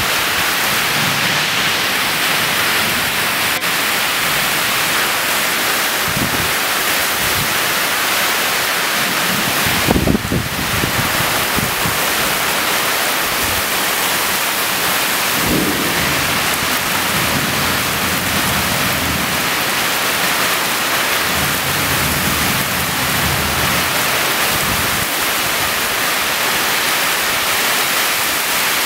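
Heavy rain pouring down in a storm: a loud, steady hiss. A short low rumble comes about ten seconds in, and a weaker one a few seconds later.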